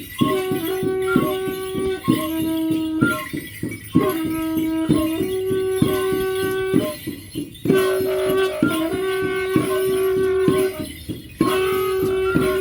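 Mapuche dance music: short phrases of long held notes, repeated with brief breaks, over a steady fast drumbeat of about three to four beats a second.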